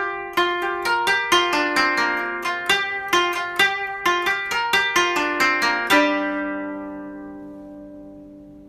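Background music: a gentle melody of plucked notes, about two or three a second, ending about six seconds in on a final chord that rings and fades away.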